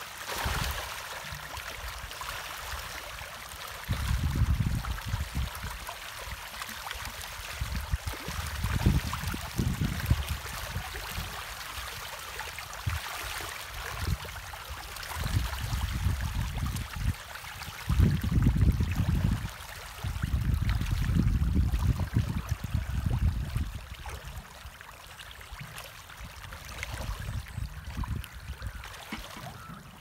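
Pangasius catfish splashing and churning the pond surface as they feed, a steady watery hiss. Several loud low rumbles break in at intervals, the loudest just past the middle.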